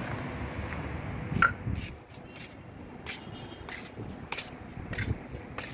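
Steady hum of city traffic heard from a rooftop, with wind on the microphone. About two seconds in it gives way to a quieter background with a string of light, irregular clicks.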